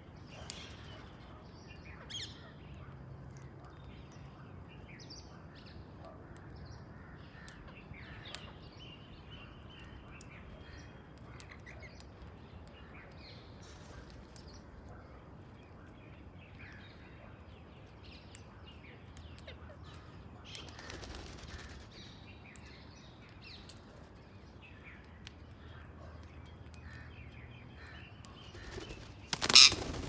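Wild birds chirping and calling, short scattered notes throughout, with one much louder call near the end.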